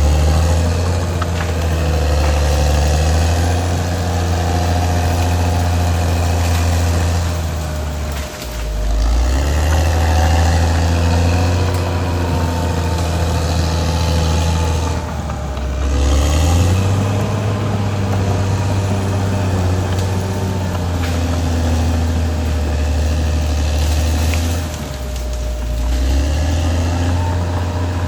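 Caterpillar D6R XL bulldozer's diesel engine running steadily at working speed. Three times, about a third of the way in, just past halfway and near the end, the engine note dips briefly and then picks back up.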